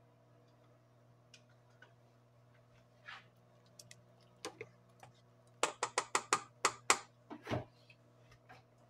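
A spoon stirring rice in a stainless steel pot, clicking sharply against the pot about six times a second for a little over a second, then one duller knock. A steady low hum sits underneath.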